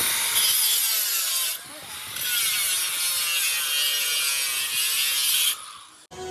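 Power tool grinding steel: a harsh, hissing grind in two long spells, with a short drop about one and a half seconds in.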